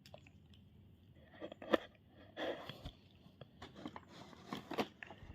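Faint, scattered handling noises from a toy vending machine and its squishies: irregular soft taps, clicks and rustles, starting about a second and a half in.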